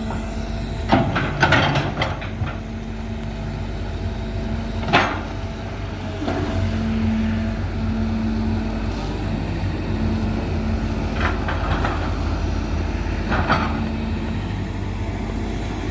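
Excavator engine running steadily under work, with several short sharp knocks scattered through it, about five in all.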